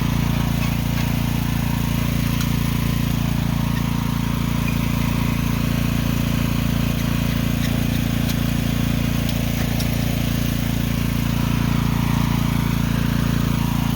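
Mini excavator engine running at a steady, unchanging speed, with a few faint ticks.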